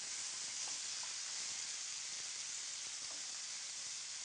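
Scallops and fish pieces sizzling steadily as they sauté in a stainless steel pan, with a few faint clicks.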